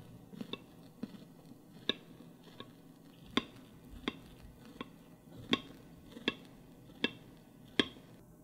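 Knife cutting through a soufflé omelette on a ceramic plate: a steady series of short, sharp clicks, about one every three-quarters of a second.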